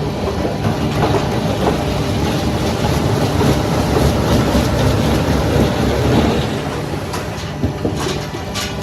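Heavy machinery running with a steady low hum and a dense rattle, with a few sharp clicks near the end.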